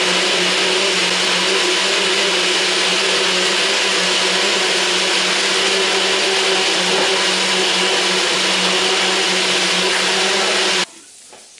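Compact personal blender running steadily, blending chocolate pancake batter, with a constant motor hum and whine. It cuts off abruptly near the end.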